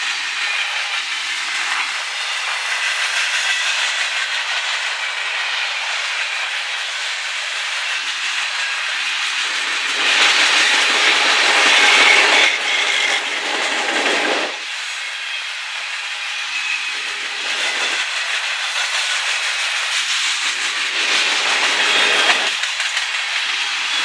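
Freight train cars rolling past: tank cars, covered hoppers and boxcars, with a steady rush of steel wheels on rail. It swells louder for a few seconds about ten seconds in, then eases off.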